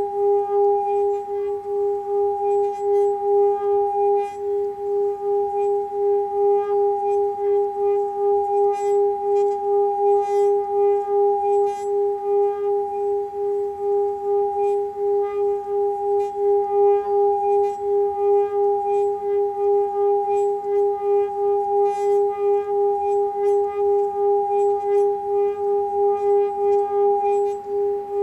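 Hand-held metal chakra singing bowl sung by rubbing a mallet around its rim. It gives one sustained humming tone with a higher overtone above it, pulsing evenly in loudness.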